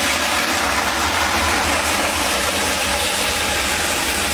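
Water from a reservoir outlet gushing through the opened gate valve into a concrete pressure-break box. It makes a loud, steady rush with a deep rumble underneath, starting suddenly as the flow is let through.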